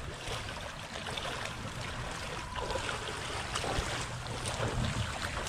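Shallow water splashing and sloshing as a person wades through it, dragging a cast net full of fish, with many small splashes and wind rumbling on the microphone.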